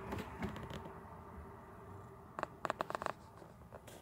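Faint handling noise from a tablet held while filming, with a quick run of light clicks about two and a half seconds in and one more click near the end.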